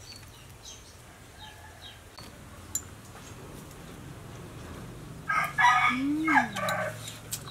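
A rooster crows once, starting a little past five seconds in, a single loud call that lasts about a second and a half.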